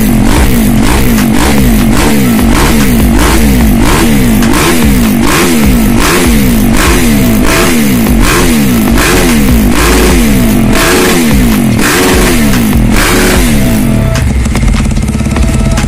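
Husqvarna FS450 supermoto's single-cylinder four-stroke engine revved in quick repeated throttle blips, about two a second, the pitch rising and falling with each one. Near the end it settles to a steady idle.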